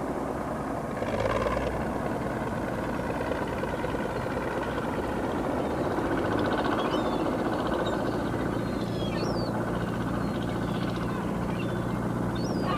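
Steady low engine drone, with faint high chirps over it in the second half.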